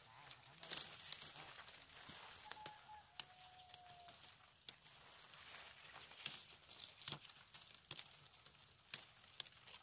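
Leaves being plucked off apple branches by hand: faint, scattered snaps and rustles of foliage. Two short whistle-like notes come about a third of the way in.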